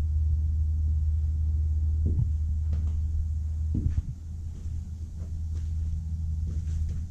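A steady low rumble, with a few faint clicks and knocks from the handheld camera and its mount as it is moved.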